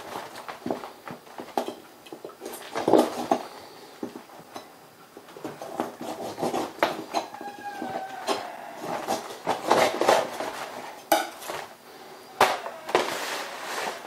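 Kitchen shears snipping the wing tips off a raw turkey, with irregular clicks, knocks and crinkles from the disposable aluminium roasting pan as the bird is handled in it.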